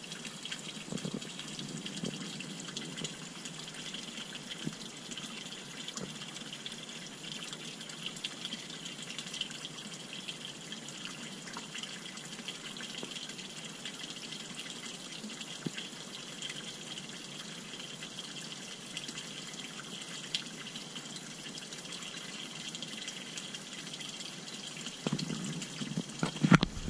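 Steady splashing of a thin stream of water pouring from a pipe into a fish pond. A few louder bumps near the end.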